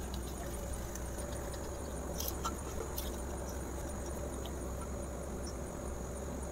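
A steady low hum and hiss of background noise, with a few faint clicks about two to three seconds in as small clay cups are set down on a cement floor.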